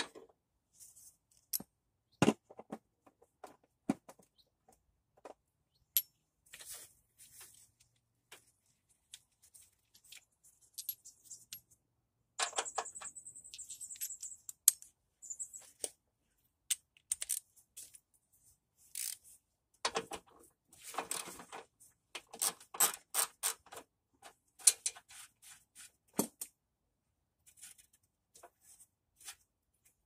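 Hand work on a car's engine wiring harness: scattered clicks, knocks and light rattles of plastic connectors, clips and small metal parts being handled and worked loose. There is a dense spell of quick rattling a little before the middle, and another busy run of clicks about two-thirds through.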